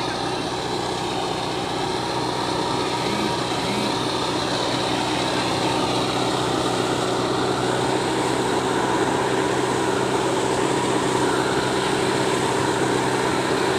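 Diesel engine of a Mahindra EarthMaster SX90 backhoe loader running steadily, growing slightly louder.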